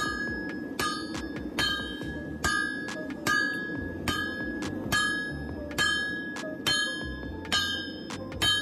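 Hand hammer striking red-hot leaf spring steel on an anvil to draw it out: about eleven evenly paced blows, a little over one a second, each with a bright metallic ring from the anvil.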